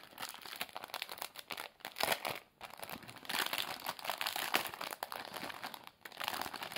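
Clear cellophane sleeve crinkling in spells as it is handled and a small folded paper booklet is worked out of it.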